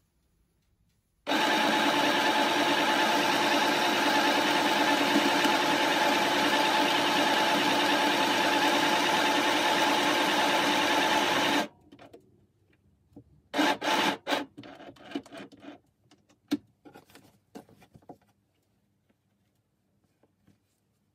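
Small mini sewing machine running steadily for about ten seconds as it stitches a seam, then stopping abruptly. Afterwards, fabric rustling and light handling clicks as the work is moved.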